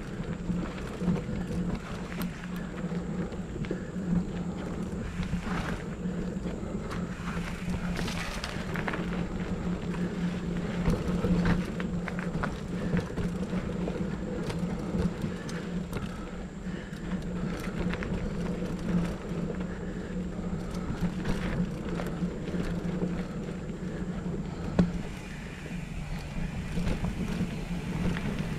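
Mountain bike ridden along a dirt forest trail: knobby tyres rolling over dirt and leaves, with frequent rattles and knocks from the bike over roots and stones, one louder knock near the end, under a steady low hum.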